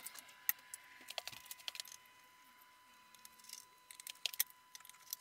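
Light metallic clicks, taps and clinks of hand tools on a pillar drill's pulley housing and pulleys, as the pulleys are loosened and lifted off their spindles. The clicks come scattered and irregular, in small clusters.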